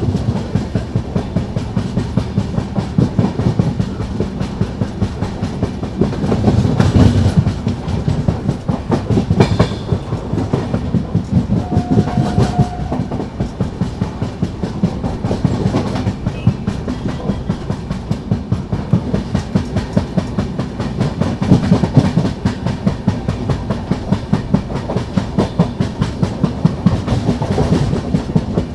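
LHB passenger coach wheels running on the track, with a regular, repeating thump from a flat spot worn into a wheel tread, heard from the coach's open doorway.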